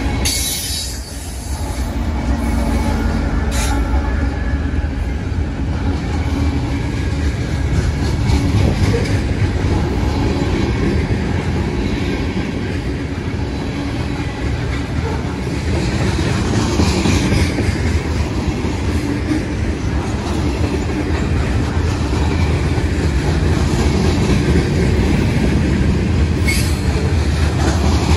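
Freight train of covered hopper cars rolling past close by: a steady, loud rumble of steel wheels on rail, with a few sharp clanks now and then.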